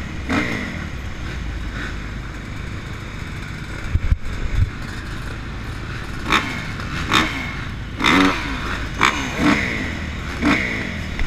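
Motocross bike engines idling, with short throttle blips that make the revs rise and fall several times in the second half. A sharp knock about four seconds in.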